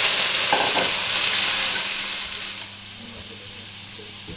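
Baby octopus sizzling loudly in hot oil in a non-stick pan with fried garlic, just after going in; the sizzle drops to a much quieter frying hiss about two and a half seconds in.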